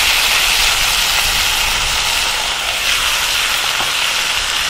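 Chicken and vegetables frying in olive oil in a cast-iron Dutch oven over a campfire: a steady sizzling hiss.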